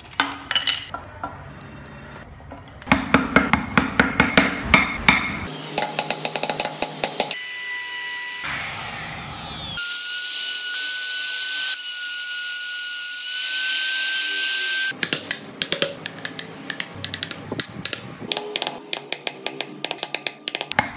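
Wood carving: rapid tapping and scraping of hand tools biting into wood. In the middle a small high-speed power tool runs for several seconds with a steady high whine.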